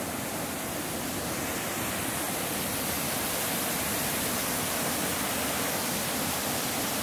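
Tahquamenon River's Lower Falls: whitewater rushing over low rock cascades in a steady, even rush of water. It grows a little louder over the first few seconds, then holds.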